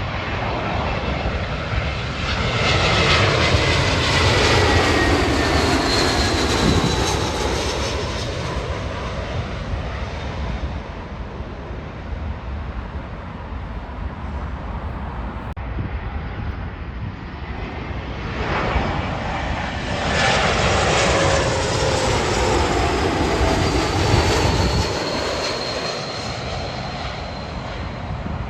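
Two jet airliners pass one after the other, the first near the start and the second about two-thirds of the way through. Each brings a swell of engine noise with a whine that falls in pitch as the plane goes by.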